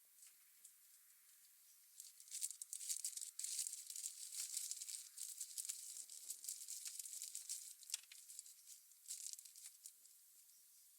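Faint crinkling and scratching with scattered sharp clicks, starting about two seconds in and dying away near the end.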